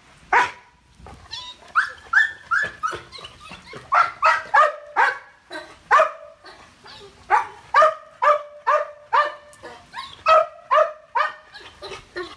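A pit bull–Labrador mix dog barking and yelping over and over in quick runs with brief pauses, the distress calling of separation anxiety.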